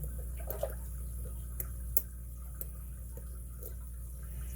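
Faint metal ticks and scrapes of a lock pick working the pin stack inside a brass padlock, about half a dozen short sharp ticks over a few seconds, over a steady low hum. The pins are not setting.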